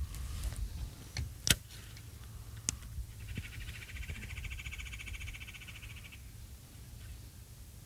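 A frog trilling: one high, rapid trill about three seconds long that starts about three seconds in. Before it come a few light knocks, all over a low steady rumble.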